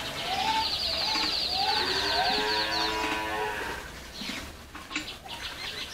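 Cattle mooing: a drawn-out, wavering call over the first three seconds or so, with a fast high trill above it. It fades to quieter sounds near the end.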